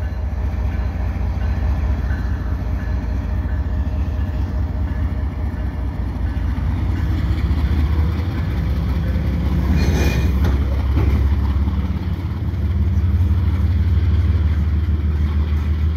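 GE diesel locomotives of a slow freight train running past close by with a low, steady burbling rumble, followed by freight cars rolling by on the rails. A brief burst of noise comes about ten seconds in.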